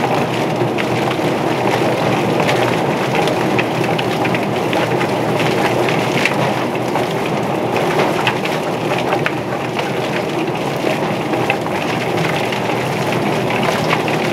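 Drum-style chicken plucker running: a scalded chicken tumbling against the spinning rubber fingers under a spray of water. It makes a steady wet noise with a scatter of quick slaps.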